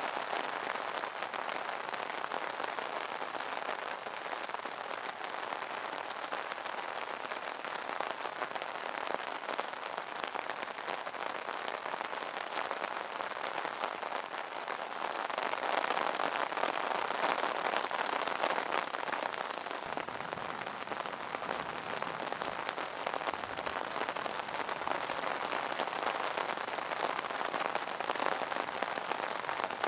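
Steady rain falling on an umbrella, a dense even patter of drops that grows heavier for a few seconds about halfway through.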